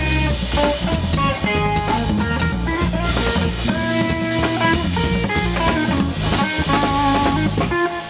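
Live jazz-fusion trio of guitar, bass and drum kit playing together, with drums and cymbals over a walking bass line and guitar melody. Near the end the drums and bass drop out, leaving the guitar alone.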